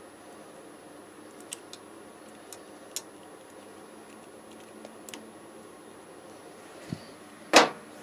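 A few light clicks and ticks of a screwdriver working a small screw at a motorcycle's front brake light switch. Near the end there is a low knock, then one much louder sharp clack.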